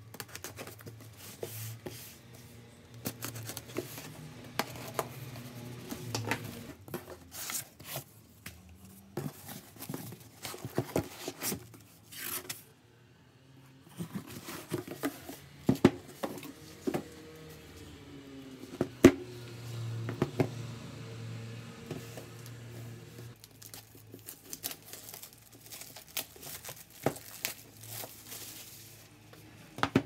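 A cardboard box being unpacked: a knife blade slitting the packing tape, tape tearing and cardboard flaps and packing rustling, with sharp knocks and scrapes as a heavy boxed book set is handled on a table, the loudest knocks about two-thirds of the way through.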